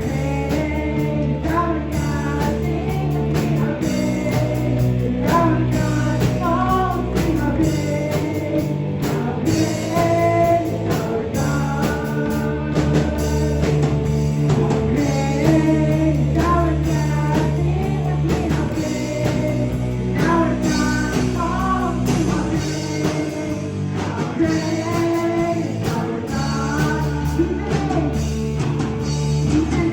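A song playing: a singing voice over a rock-style band backing with steady bass notes.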